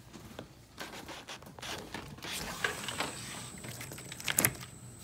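Scrapes, rustling and light knocks of a Persian cat scrambling at a screened window sill after a lizard, with one sharper knock about four seconds in.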